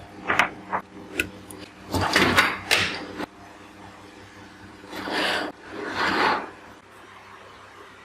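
Hard plastic parts being handled: several sharp clicks, then short scraping and sliding noises, with two half-second slides near the middle.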